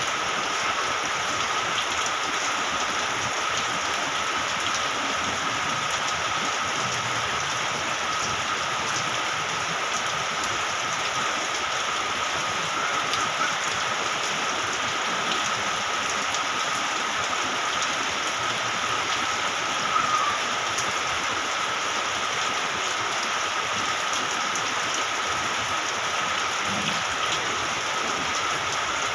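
Steady rain falling and hitting surfaces: a constant hiss with many fine drop ticks, unchanging throughout.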